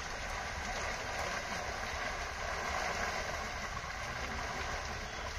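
Steady splashing and churning of water as a mass of fish leap and thrash against a net strung across a river.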